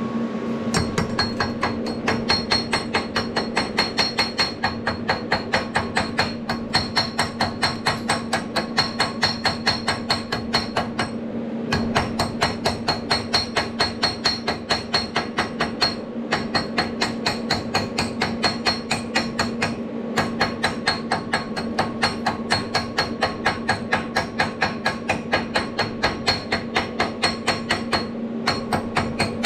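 Rapid, evenly spaced hammer strikes on metal, about five a second, with a few short pauses, over a steady low hum.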